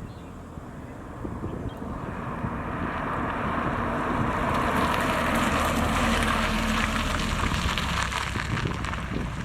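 2022+ Subaru WRX's turbocharged flat-four through an XForce VAREX valved cat-back exhaust, growing louder from about two seconds in to a peak around six seconds, then easing off near the end.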